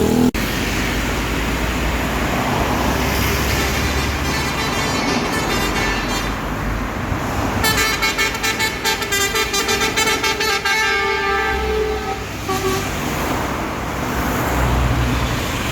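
Bus engine and road noise, then about halfway through a basuri telolet multi-tone air horn plays a quick, pulsing run of notes for about five seconds before the engine noise returns.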